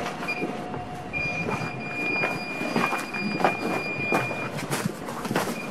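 Electronic ghost-hunting meter sounding a steady high-pitched tone, briefly at first and then for about three seconds from a second in, over hiss and scattered clicks. The tone is its alert that it is picking up a reading.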